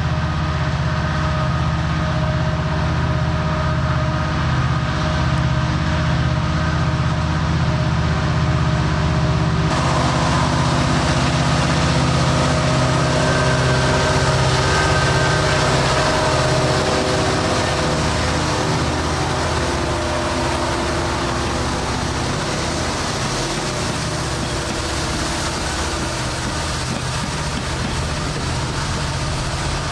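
A pair of EMD SD70ACU diesel-electric locomotives working in full throttle up a steep grade, their diesel engines running loud and steady. About two-thirds of the way through, the engine tones fade and an even rushing noise of the train rolling by takes over.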